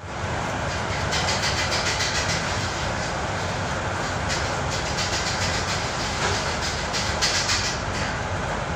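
Repaired Electrolux W65EB machine running with its service panel open: a steady mechanical running noise with a low hum and a fast, uneven clattering rattle over it.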